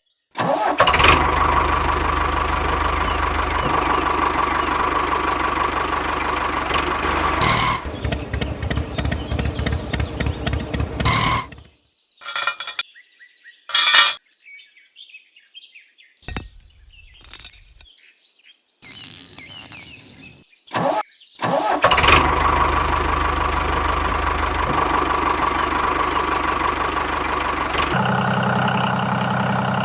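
Engine of a miniature DIY tractor running with a steady drone, turning into rapid even pulsing partway through. A quieter stretch in the middle holds scattered knocks before the running resumes, and a lower-pitched engine takes over near the end.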